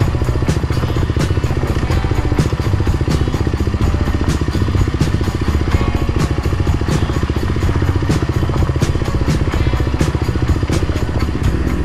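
Kawasaki KLX300R's single-cylinder four-stroke engine running steadily while riding a rocky dirt trail. Frequent knocks and clatter from the bike over the ground come through.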